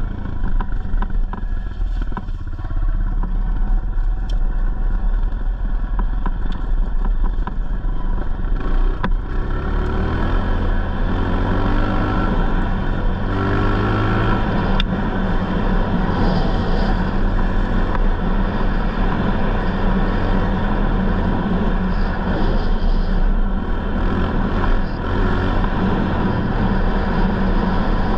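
Honda 125 dirt bike engine running steadily while the bike is ridden. Its pitch rises a couple of times about a third of the way through as the rider accelerates.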